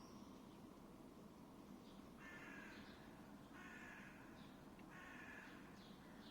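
A crow cawing three times, harsh calls about a second and a half apart starting about two seconds in, with small higher bird chirps, over a faint steady low hum.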